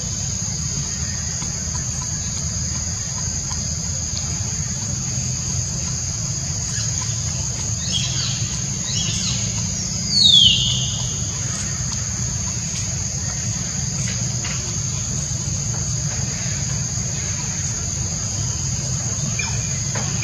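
Insects drone steadily at two high pitches. About halfway through, a few fainter falling whistled calls lead up to one loud call that sweeps downward.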